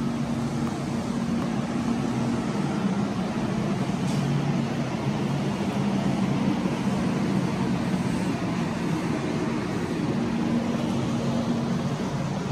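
Train in motion: a steady running noise with a low, even hum underneath.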